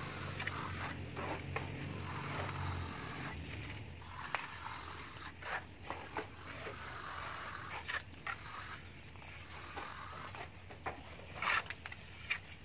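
Steel trowels scraping and spreading cement plaster on a brick wall in repeated strokes, with scattered sharp taps of the tools. A low hum sits underneath and stops about three seconds in.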